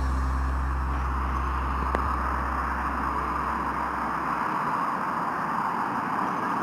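Street traffic: a steady rush of cars driving past on the road. A low steady hum fades away about four seconds in.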